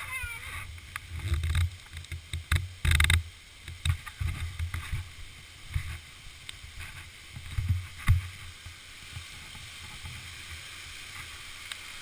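Waterfall rushing as a steady hiss that grows a little louder near the end, as it comes closer. Over it, for the first eight seconds or so, come irregular dull low thumps and bumps, the loudest a little after two seconds in and again near eight seconds.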